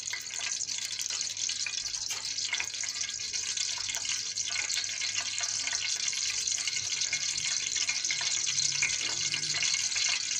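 Cooking oil heating in a steel pot on the stove: a steady hiss with faint crackling that grows slightly louder toward the end as the oil warms up.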